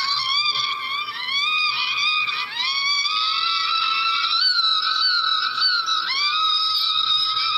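A very high-pitched voice, like a cartoon character's, cries out in a quick run of short rising wails, then holds long drawn-out wails, rising again a little after six seconds in.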